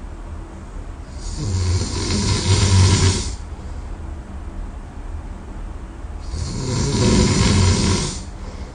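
A person snoring in deep sleep: two long, loud snores about five seconds apart, each lasting around two seconds, with a low rattle under a breathy rush of air.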